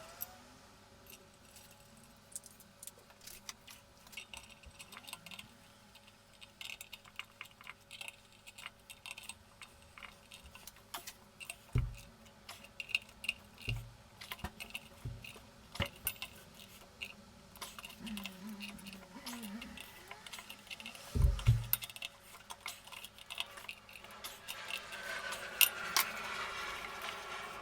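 Small metal clinks and clicks of hand tools and bolts as a motorcycle brake disc is bolted back onto the wheel hub, with a few dull knocks of the wheel or disc being handled.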